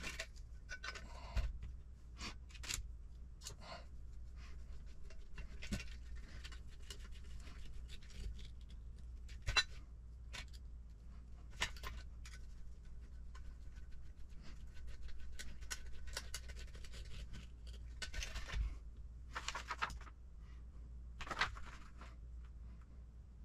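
Hard plastic RC car parts and small metal screws being handled and fitted by hand, with a hex driver turning screws into the chassis: scattered light clicks and taps, and a few short scraping bursts near the end.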